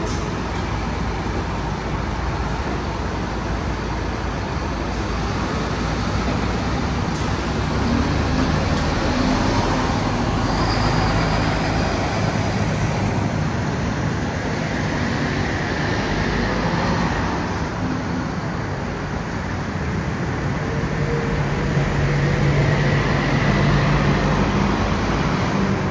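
MAN Lion's City Hybrid city bus under way, its 10.5-litre MAN D2066 diesel engine running under steady road noise. The engine note shifts in pitch, and the sound grows louder about a third of the way in and again near the end.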